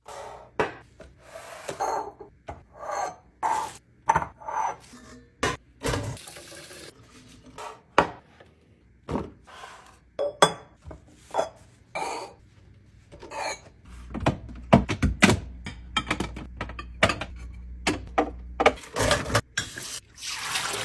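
Food containers, jars and dishes being handled and set down: irregular knocks, clinks and rubbing. A steady low hum joins in about two-thirds of the way through.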